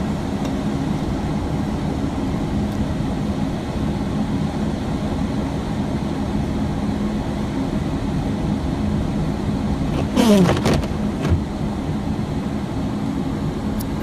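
Steady engine drone and road noise of a vehicle driving, heard from inside the cab. About ten seconds in, a short sound falls in pitch.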